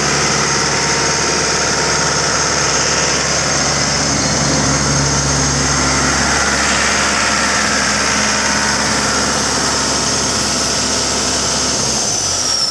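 Caterpillar 3054 four-cylinder diesel engine running steadily at an even, unchanging speed. Near the end its low hum drops away.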